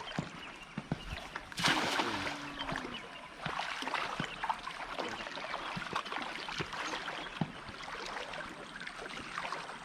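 A cast net hitting the river water with a brief loud splash about a second and a half in, followed by steady splashing and trickling water with small clicks and drips.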